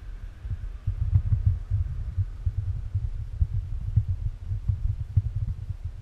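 Wind buffeting the camera's microphone: an uneven low rumble with quick gusty surges.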